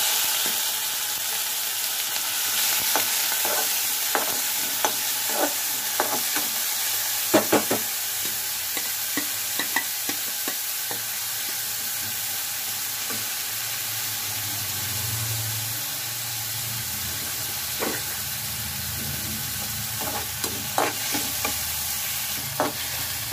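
Chopped onion and garlic sizzling in hot mustard oil in a steel kadhai. A perforated steel spoon stirs them, with scattered scrapes and taps against the pan.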